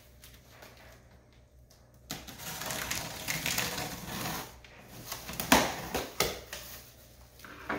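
Packing tape being pulled off the seam of a cardboard shipping box: a crackling rip that starts about two seconds in, with two sharp tearing snaps a little past the middle.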